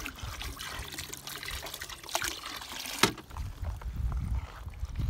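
Water trickling around a homemade rink flooder, a garbage can filled with pond water, with one sharp knock about three seconds in and a low rumble after it.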